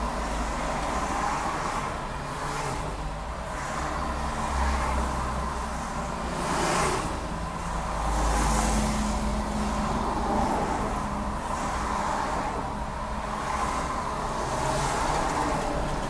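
Car driving in traffic: a steady low rumble of engine and tyres on the road, with a hiss that swells and fades every couple of seconds as other vehicles go past.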